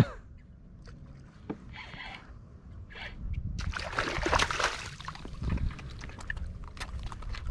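A hooked porgy splashing and thrashing at the water's surface as it is reeled up beside a kayak, loudest about four seconds in, over low sloshing of water against the hull, with scattered light clicks.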